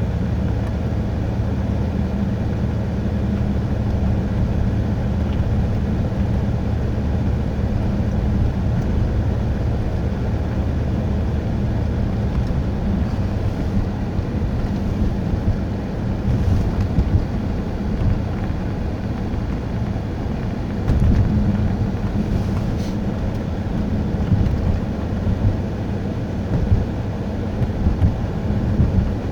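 Steady engine drone and road and tyre noise of a Pontiac Grand Prix driving on slushy, icy roads, heard from inside the cabin.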